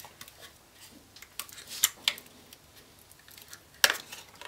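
Clear plastic clamshell CPU case being handled in the hands: scattered sharp plastic clicks and crackles, the loudest click near the end.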